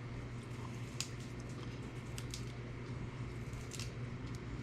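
A few light ticks and handling noises, about four in all, over a steady low hum.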